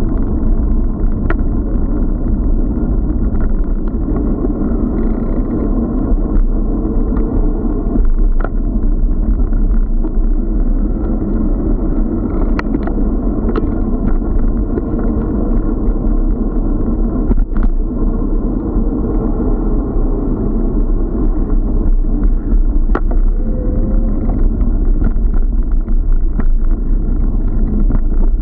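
Steady, loud rumble of wind and road noise on a bicycle-mounted action camera's microphone while riding, with a few sharp clicks scattered through.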